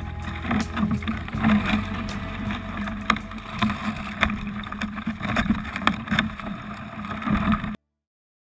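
Wilderness Systems Tempest 170 sea kayak moving on the water, with sharp knocks against the hull over a steady wash of water and wind on the microphone. The sound cuts off suddenly near the end.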